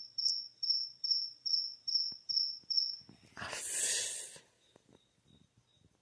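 A cricket chirping in a steady high-pitched rhythm, about three chirps a second; this is the insistent 'cri-cri' that has been called unbearable. The chirping stops a little after three seconds in and is followed by a burst of noise lasting about a second.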